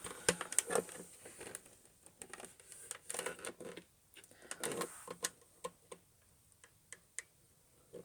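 Scattered plastic clicks and brief rattling and scraping from handling the clear dust bin of a Shark vacuum cleaner, busier in the first half and thinning to a few lone clicks near the end.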